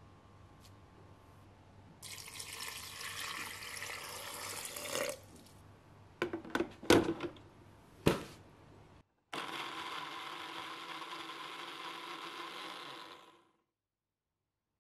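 Water poured from a glass measuring jug into a blender jar of walnuts for about three seconds, then a few sharp knocks as things are set in place. The Poweli blender then runs steadily for about four seconds, blending the walnuts and water into nut milk, and stops abruptly.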